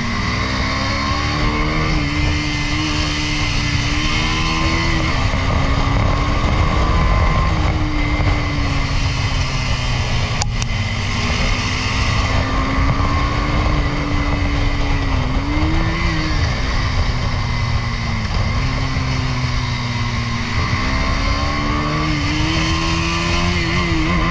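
Motorcycle engine running under way, its note rising and falling with the throttle and dropping sharply a few times, over a heavy rush of wind.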